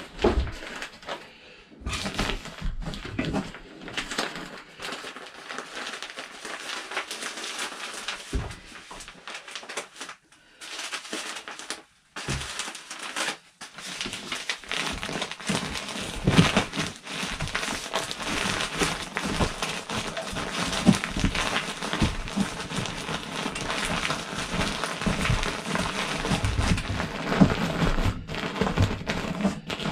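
Fiberglass insulation batting being pushed and stuffed by hand up through a ceiling opening, giving an irregular crinkling, rustling and scraping close to the microphone, with two brief lulls partway through.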